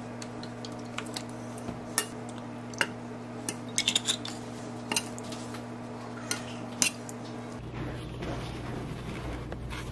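Metal fork clinking and scraping against a stainless steel saucepan while tossing soybean sprouts, in sharp scattered clinks with a quick run of them about four seconds in, over a steady low hum. The clinking stops about three-quarters of the way through, leaving a lower background rumble.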